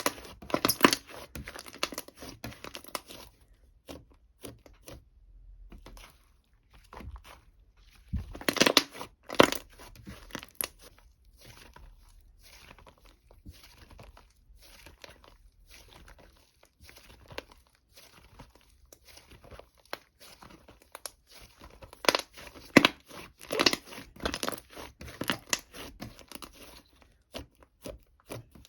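Crinkling and tearing of a crackly material, heard as many quick, sharp crackles. They come in three busier spells, at the start, about a third of the way in and near the end, with scattered crackles between.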